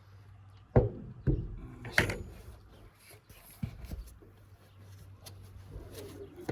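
Handling noises from hands-on work: three sharp knocks within about a second and a half, then a lighter knock and faint rubbing.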